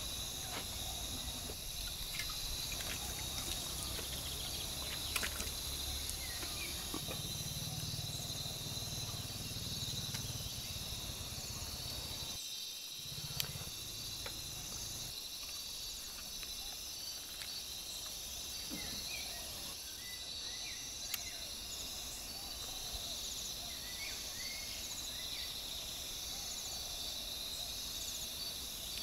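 A steady outdoor chorus of insects chirring, with a few sharp ticks.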